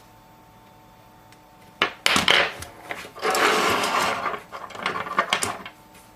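A click about two seconds in, then a few seconds of uneven scraping and rubbing from small hand tools worked against a smartphone during disassembly.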